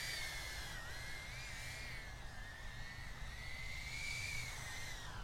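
Protek35 cinewhoop FPV drone on 8-blade HQProp propellers flying, its props giving a steady high whine with a hiss that wavers gently in pitch as the throttle changes. The 8-blade props are fitted to cut the noise, and the sound here is heard as quieter and more tolerable.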